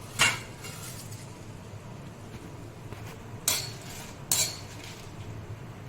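A metal spoon clinking against a cooking pan three times: once near the start, then twice close together about three and a half seconds in, over a steady low hum.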